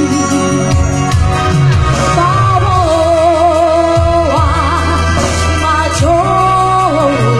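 A Batak song sung solo with band accompaniment. The singer holds long notes with a wide vibrato over a steady, rhythmic bass line.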